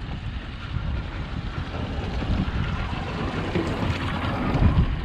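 Wind buffeting the microphone in a steady rumble on a small open boat at sea, with a hiss of water that swells about three seconds in.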